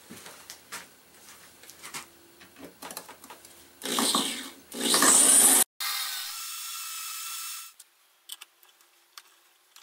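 Electric drill boring a vertical hole into a metal I-beam clamp in a vise, the pilot hole for tapping a thread. Light clicks of handling come first; then, about four seconds in, the drill cuts in two short loud bursts, followed by a steadier stretch of drilling that stops abruptly near eight seconds.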